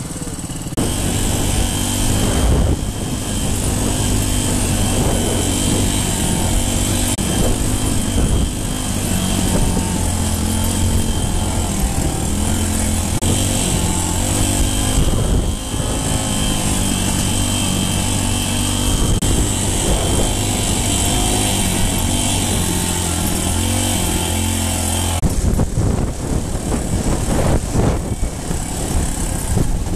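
Dirt bike engine running under way on a gravel trail, its note holding steady and changing pitch in steps several times. About 25 seconds in the steady engine note drops away under uneven rattling noise.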